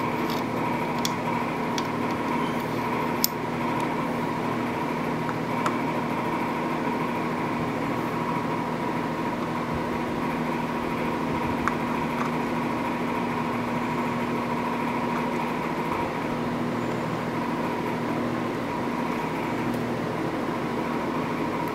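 Steady, even machine hum, with a few light metallic clicks as the starter gear is handled and turned against the crankshaft splines.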